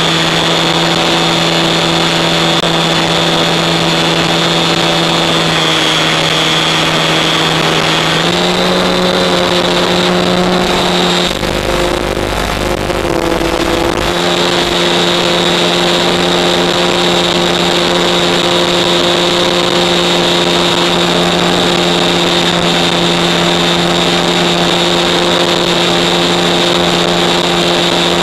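Brushless electric motor and propeller of a Cularis RC motor glider running steadily under power, heard from the onboard camera as a steady whine. The pitch steps up a little about eight seconds in as the throttle rises, and a low rumble of wind on the microphone comes in for a few seconds in the middle.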